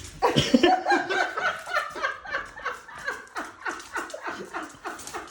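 A person laughing hard: a fast run of short laughs that carries on without a break.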